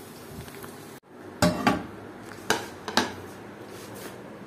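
Frying sizzle for about a second, then a frying pan and its utensils knocking and clinking against a plate as the cooked bread-and-egg omelette is turned out: about half a dozen sharp clatters over three seconds, the loudest two close together near the start.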